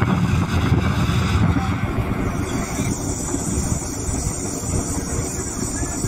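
Steady rumble of a car driving, with road and engine noise and wind buffeting on the microphone. The sound shifts a little about two seconds in.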